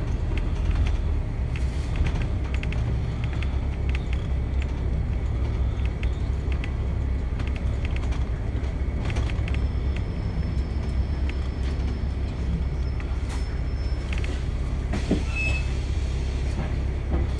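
Steady low engine and road rumble of a New Routemaster hybrid double-decker bus under way, heard from the upper deck, with scattered clicks and rattles. A faint high-pitched whine comes in for about four seconds in the middle.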